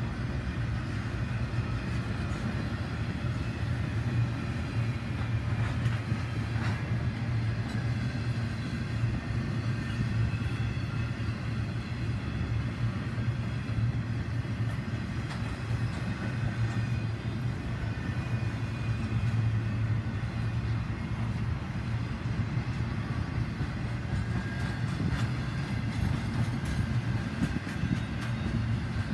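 CSX intermodal freight train's loaded cars rolling past: a steady rumble of wheels on rail.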